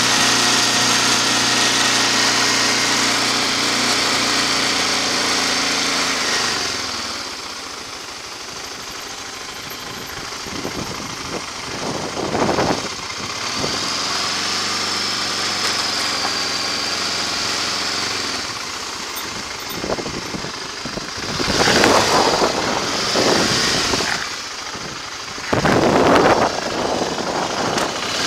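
Motorcycle engine running on a slow ride through town, with road and wind noise. The engine note drops about six seconds in as the bike slows, then settles low, with short louder surges of throttle and noise about halfway through and twice near the end.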